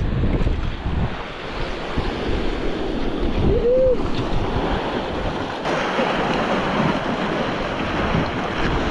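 Surf washing over and against shoreline rocks, with wind buffeting the microphone. A brief whistle-like chirp rises and falls a little under four seconds in, and the hiss of the wash turns brighter and fuller about two-thirds of the way through.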